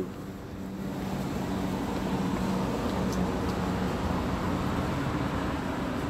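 Steady road traffic noise with a low engine hum, swelling during the first second and then holding even.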